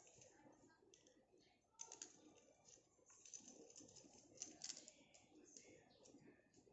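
Faint, irregular clicks and rattles of small plastic parts being handled: the pink plastic clip of a selfie ring-light desk lamp being worked in the hands.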